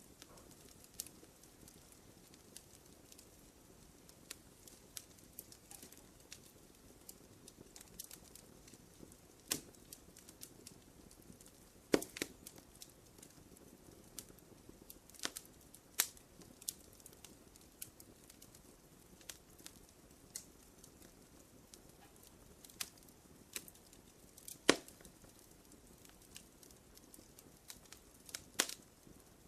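Campfire crackling quietly: scattered sharp pops and snaps from the burning wood over a faint low hiss of the flames, with a couple of louder pops, one near the middle and one later on.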